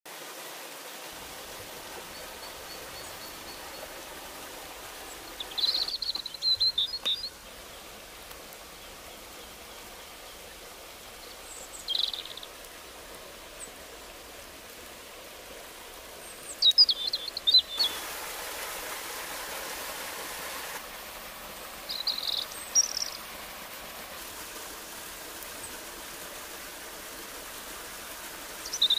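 Birds chirping in short high bursts every few seconds over the steady rush of a stream and small waterfall.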